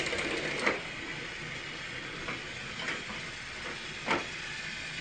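Small electric motor of a battery-powered toy train whirring steadily, with about four short clicks, the loudest near the end.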